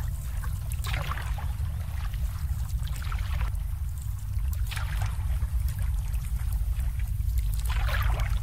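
Water lapping and sloshing in four gentle washes about two seconds apart, over a steady low rumble.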